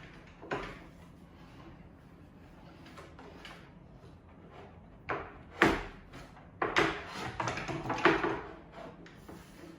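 Wooden platform boards being handled and set in place: a single knock just after the start, then after a quiet stretch a cluster of knocks and scraping from about five to eight seconds in.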